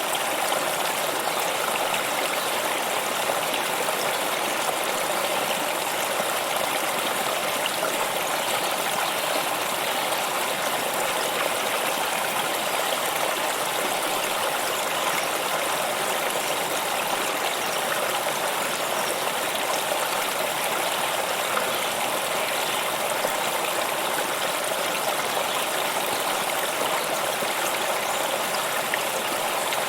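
Water stream flowing steadily, an even, unbroken rushing noise with no pauses or changes.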